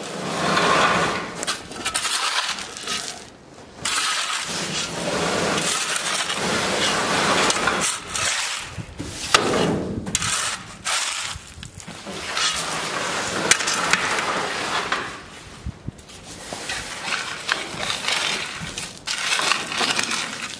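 Gravel crunching and scraping in uneven strokes of a second or two, as a tool is worked through crushed stone.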